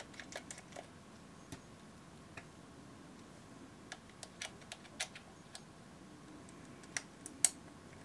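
Precision screwdriver backing small screws out of a camera's plastic lens-and-shutter assembly: scattered light clicks and ticks of the bit, screws and plastic parts being handled. The sharpest click comes about seven and a half seconds in.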